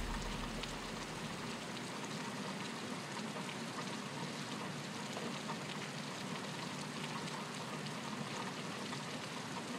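A steady soft hiss with a fine, even patter, the sound of light rain falling.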